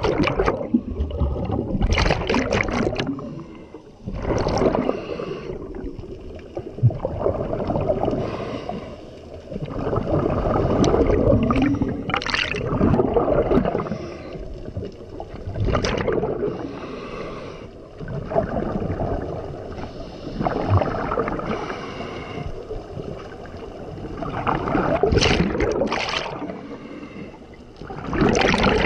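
Scuba regulator breathing recorded underwater: a rush of exhaust bubbles with each exhalation, rising and falling in slow, uneven breaths every few seconds.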